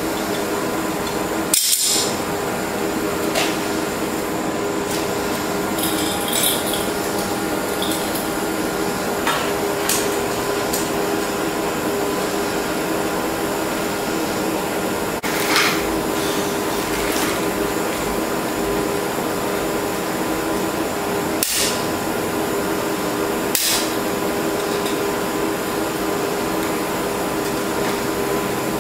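Three propane torches burning steadily against a cast iron exhaust manifold, with several sharp metallic clinks and knocks from tools scattered through.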